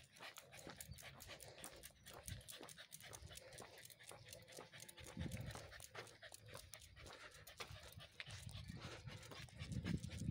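Faint rapid panting with quick steps on the road, and low thumps near the end.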